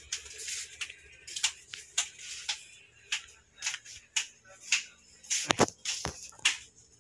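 Footsteps and handling noises of someone carrying stock by hand: an irregular string of short, sharp taps and rustles, with a couple of louder knocks about five and a half seconds in as the stairs are reached.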